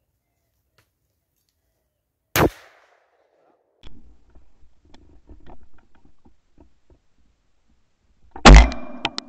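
Two shotgun shots: a sharp crack about two and a half seconds in, and a second, louder one near the end, heard from the gun-mounted camera. Faint rustling and small clicks come between the shots.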